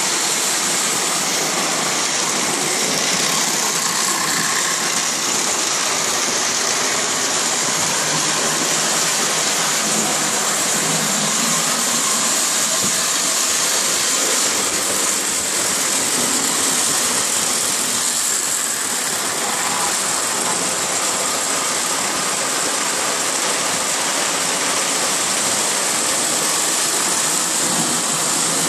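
Lionel O-gauge model trains running on the layout: a steady whir and hiss from the motors and wheels on the three-rail track, at an even level.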